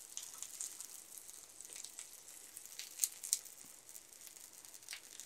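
Garlic cloves frying in a shallow layer of mustard oil, giving a faint sizzle with a few scattered sharp crackles, the loudest about three seconds in.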